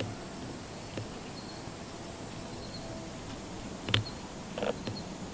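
Quiet outdoor field ambience with a few faint chirps and a handful of soft clicks, the sharpest click about four seconds in.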